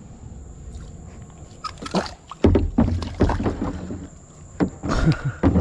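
Water splashing and knocking against a kayak, in irregular bursts starting about two seconds in and again near the end, with a low rumble under them.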